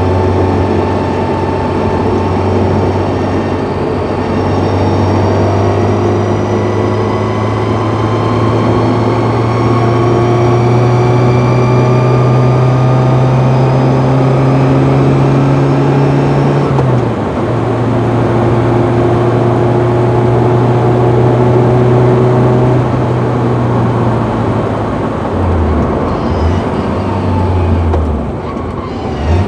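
Car gearbox whining while driving: several high thin whine tones rise slowly in pitch with road speed, over the steady engine drone. The whine is the sign of a faulty, whining gearbox. About 17 seconds in the engine note drops at a gear change, and near the end it rises and falls unsteadily.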